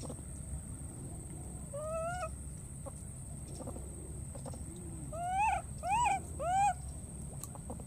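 Baby monkey crying: one rising call about two seconds in, then three louder arching cries in quick succession near the end.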